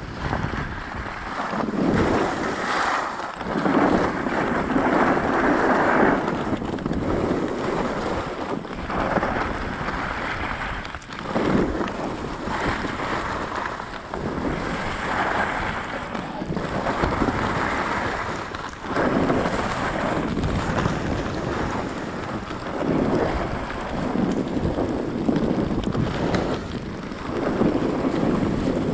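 Skis swishing and scraping over packed snow in a run of turns, swelling every two to three seconds, with wind rushing over the microphone.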